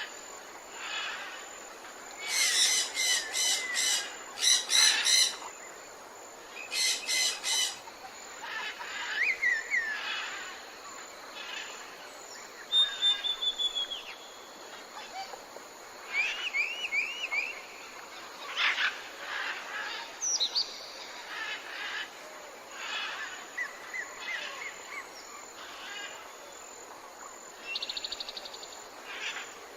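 A chorus of tropical forest birds calling: several harsh, buzzy squawks in quick runs in the first several seconds, then scattered whistled glides, short trills and chirps, over a steady background hiss.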